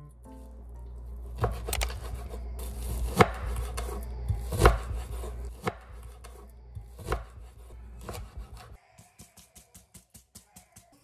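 A kitchen knife cutting raw chicken on a wooden cutting board: sharp irregular knocks of the blade hitting the board, about a second apart, over a low steady hum. Near the end, salt and pepper are shaken over the chicken in a steel bowl, a quick even run of light ticks.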